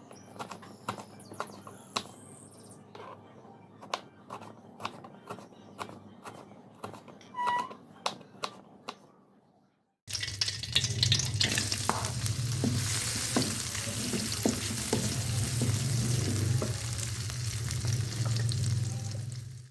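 Food frying in a pan for a home stir-fry: a steady sizzle with a low hum under it fills the second half. It follows a first half of scattered sharp clicks and knocks from kitchen work.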